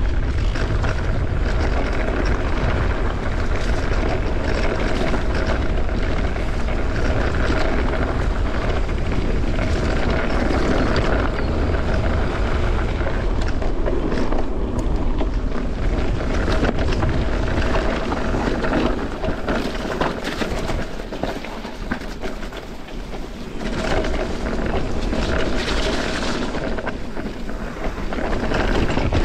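Mountain bike riding down a trail at speed: wind buffeting the camera microphone, with the tyres running over the ground and the bike rattling over bumps in many short clicks. The wind rumble eases for a few seconds about two-thirds of the way through, then picks up again.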